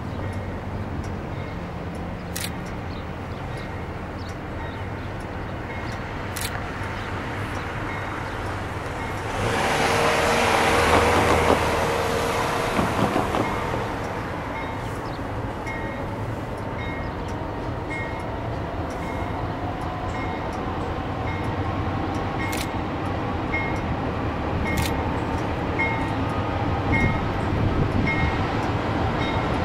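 Norfolk Southern GE C40-8W diesel locomotives moving slowly along street track, engines running with a steady low rumble. About ten seconds in there is a louder rush of noise lasting about four seconds. In the second half a bell rings about once a second, and a whine rises steadily in pitch as the train approaches.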